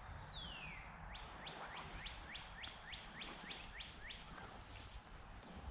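A bird singing. The song opens with a long falling whistle, then about eleven short, high, evenly spaced notes at roughly three a second, ending a little past the four-second mark.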